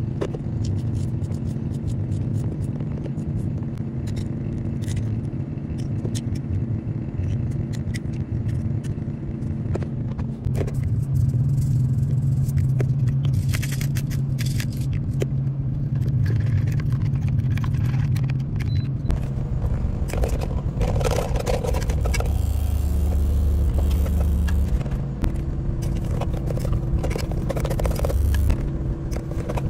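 Semi truck's diesel engine idling with a steady low hum inside the cab, under clinks and scrapes of utensils against a bowl and cooking pot.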